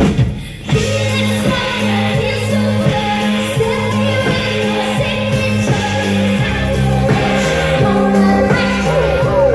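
Music with singing over a steady beat, dropping out for a moment just after the start.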